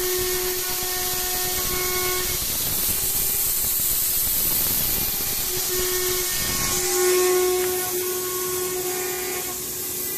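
CNC router spindle engraving an aluminium panel, the cutter giving a steady pitched whine that drops away about two seconds in and comes back in the second half. It runs over a constant loud hiss from the coolant spray nozzle aimed at the cutter.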